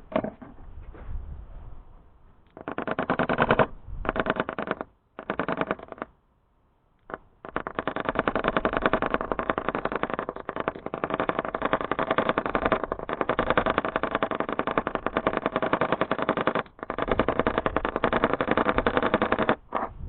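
A motor runs in three short bursts of about a second each, then runs steadily for about twelve seconds before stopping.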